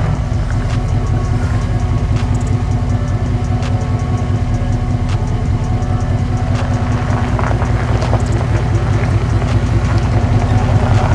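Second-gen Ram pickup running steadily at low speed off road, its engine hum low and even, with a few light knocks.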